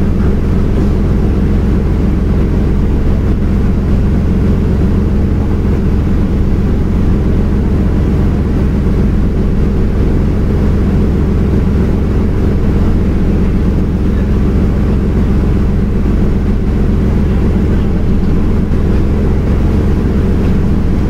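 Fishing vessel's engine running with a steady low drone that does not change.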